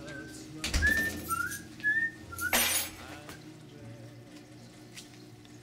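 A person whistling a tune in short, clear notes that slide up and down, broken by two loud rustling noises, the louder about two and a half seconds in; after that only faint room noise.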